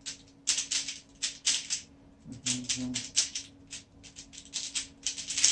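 Plastic Rubik's Cube being turned fast during a speedsolve: quick runs of clicking and clacking layer turns, broken by short pauses.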